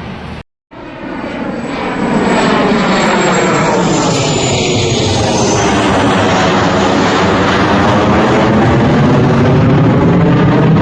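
Military jet aircraft passing low overhead: a loud jet roar that swells about two seconds in, with a high whine falling in pitch as it goes by. The audio cuts out for an instant about half a second in.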